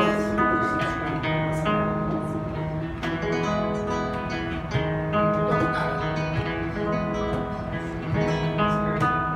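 Two acoustic guitars playing a tune, plucked melody over strummed chords, with a cajón tapping time underneath.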